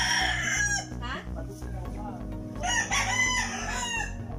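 Roosters crowing twice: one crow runs on from the very start, and a second long crow comes about two and a half seconds in.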